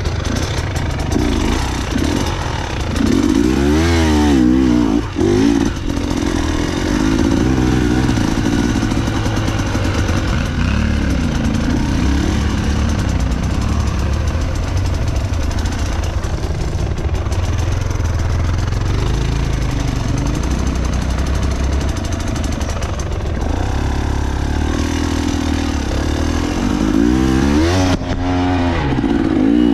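Enduro motorcycle engine running as the bike is ridden off-road, its revs rising and falling sharply a few seconds in and again near the end.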